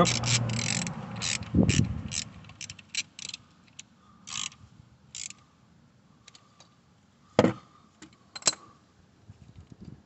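A hand ratchet with a 10 mm socket clicking rapidly as a small bolt is wound in and tightened: the retaining bolt of a crankshaft position sensor on a Citroen 2.2 HDi diesel. The clicking thins out to occasional single clicks, with two sharper, louder clicks near the end.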